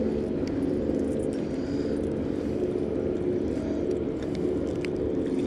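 Boat motor running with a steady low hum, with a few faint clicks over it.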